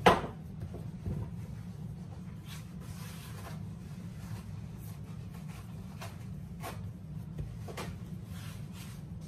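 Hands working dumpling dough on a floured mat, heard as scattered light rubs and taps. A sharp knock comes right at the start, and a steady low hum runs underneath.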